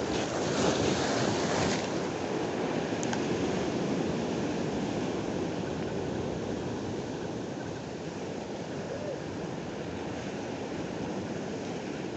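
Ocean surf breaking against rocky shore and washing back, a steady rushing wash that is loudest in the first couple of seconds and then eases.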